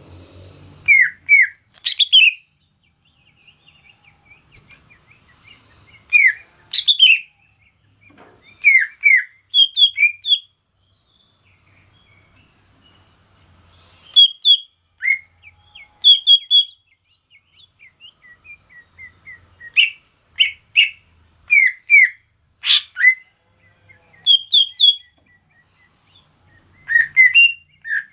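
Cucak ijo (green leafbird) singing short clusters of sharp, falling whistled notes, one burst every few seconds with pauses between, over a steady faint high hiss.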